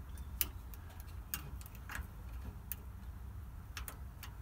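About half a dozen faint, irregular clicks and taps from a VW Bay Window camper's carburettor throttle linkage and its wire clip being handled, with the engine stopped, over a steady low rumble.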